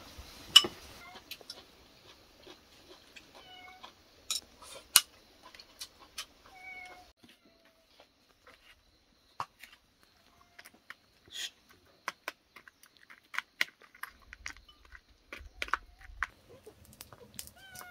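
A cat meowing a few times in short curved calls, among scattered sharp clicks and knocks.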